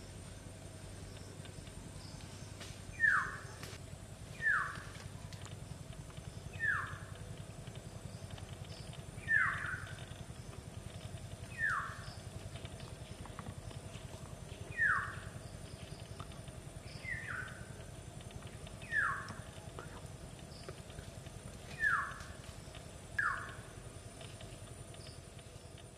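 An animal's short, falling call, repeated about ten times at uneven gaps of one to three seconds, over a steady low background hum.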